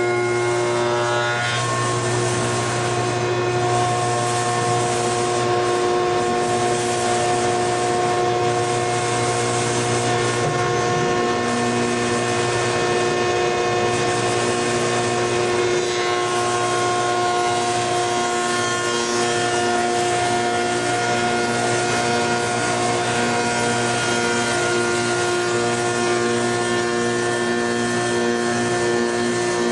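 Woodworking spindle shaper running with its dust collector: a steady hum of several held tones over an even rush of air noise, shifting slightly in tone a few times.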